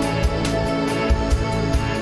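Background music with a steady beat and held tones.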